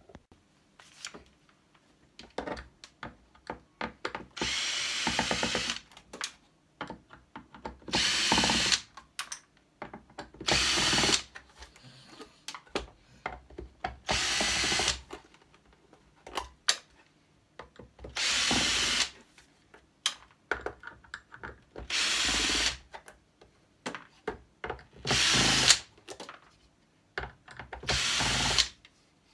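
Cordless drill-driver backing screws out of a TV box's casing in about eight short runs of a second or so each, with clicks and knocks between runs as the bit is set into the next screw.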